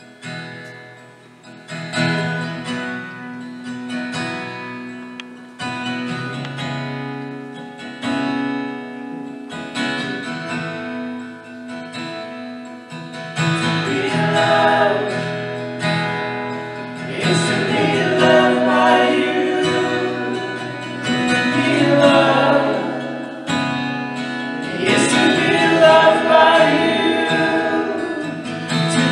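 Worship song accompanied on piano: slow chords played alone at first, then singers come in about halfway through and carry the melody over the piano.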